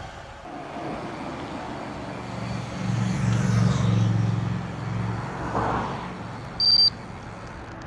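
A motor vehicle passing on the road, its engine hum swelling about three seconds in and fading after about five. Near the end comes one short, high electronic beep.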